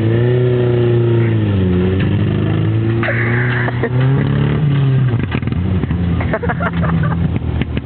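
Suzuki Vitara 16-valve engine revving up and down unevenly, then from about five seconds in running with irregular sharp pops and crackles. These are misfires and backfires from an electronic fuel injection system that got wet driving through water.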